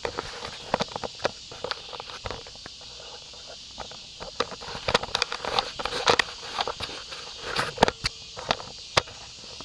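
Handling noise on an SJ5000-clone action camera: irregular clicks, knocks and scraping as fingers and skin rub against its case close to the microphone, over a steady high hiss.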